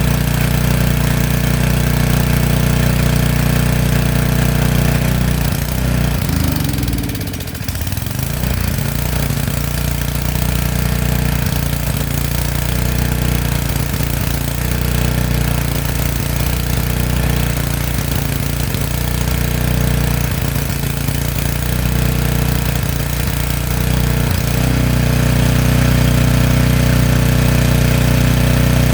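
Small gasoline engine of a portable generator running on a gummed-up carburetor whose gasket is torn and leaking. Its speed sags and recovers about seven seconds in, wavers unevenly through the middle, then settles steadier near the end.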